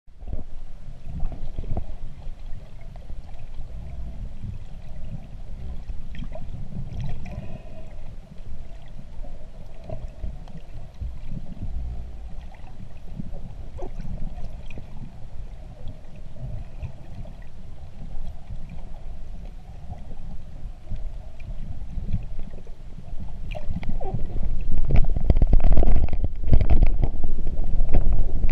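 Underwater sound as heard by a camera submerged in the sea: a steady low rumble of water with scattered faint clicks, swelling into a louder rushing rumble about five seconds before the end.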